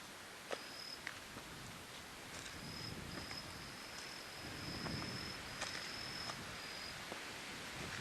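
An insect trilling in a high, steady tone: short bursts at first, then a longer run of a few seconds that breaks off near the end. Scattered sharp clicks and scuffs sound underneath.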